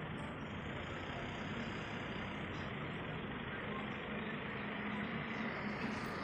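A road vehicle's engine running steadily with a low hum, over a steady rushing noise.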